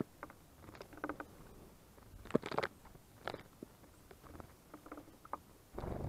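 Small birds, blue tits and great tits, bathing in a shallow garden bird bath: short, irregular bursts of splashing as they flick water with their wings, the loudest about two and a half seconds in.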